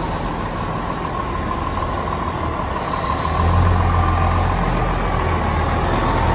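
Fire truck's diesel engine rumbling, louder from about three and a half seconds in, with a steady high whine that slowly sinks in pitch.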